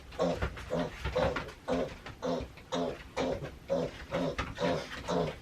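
Pig grunting steadily, short calls about twice a second.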